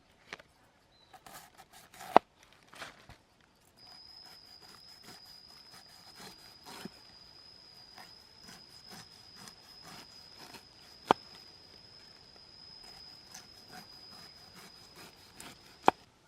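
Food-preparation handling noises: scattered light knocks, rubs and scrapes with three sharp knocks, and a thin steady high tone that starts about four seconds in.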